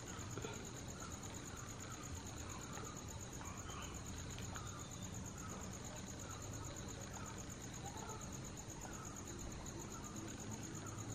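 Insects trilling steadily, a high, rapidly pulsing chirr that never lets up, with faint short chirps repeating about twice a second lower down.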